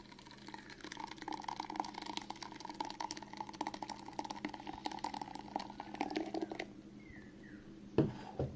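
Blended watermelon pulp poured from a plastic blender jar into a cloth juice bag, splashing for about six seconds until the pour stops. Near the end the blender jar is set down on the wooden table with two knocks.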